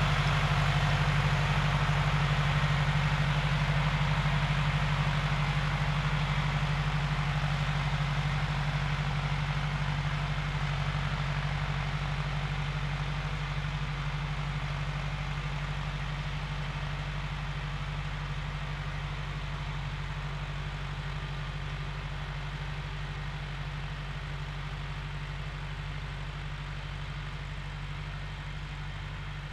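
John Deere tractor's diesel engine running steadily under load while pulling a stubble plough, a constant low drone that fades gradually as the tractor moves away.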